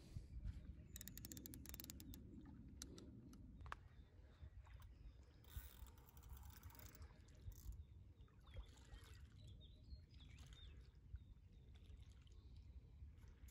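Faint river water sloshing and trickling under a low rumble. A quick run of clicks comes about a second in, and a brief rushing sound comes around six seconds.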